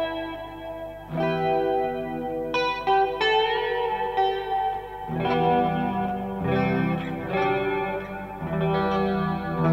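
Electric guitar played through a Small Clone–style analog chorus pedal, chords ringing out with the chorus effect on. New chords are struck about a second in, a few quicker single notes follow, and lower notes come in about halfway through.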